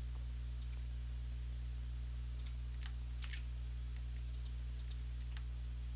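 Computer mouse and keyboard clicks while text is selected and pasted: about nine sharp single and paired clicks, over a steady low electrical hum.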